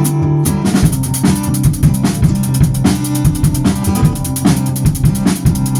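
Instrumental intro of an original acoustic song: guitar notes, with a drum kit coming in under a second in and keeping a steady beat.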